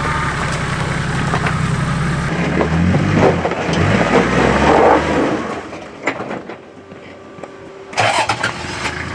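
Toyota Land Cruiser's engine running and revving under load on a rocky climb, with knocks and scrapes from the rocks. It drops away about five seconds in, and a short loud burst of noise comes near the end.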